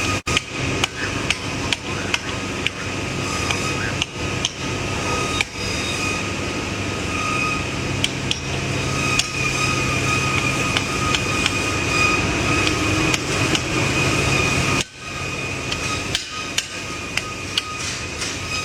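Blacksmith's hammer striking steel on an anvil during knife forging, in irregular blows a few a second, with a short break about fifteen seconds in. Beneath it is a steady hum with a high whine.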